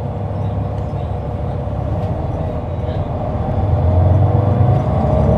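Caterpillar C9 ACERT inline-six diesel of a 2004 Neoplan AN459 articulated bus, heard from on board, running under load; about three and a half seconds in it grows louder and rises in pitch as the bus accelerates.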